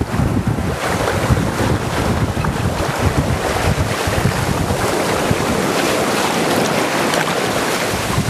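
Strong wind blowing across the microphone, with water rushing past a sailboat's hull as it sails fast in high wind; a steady, loud noise.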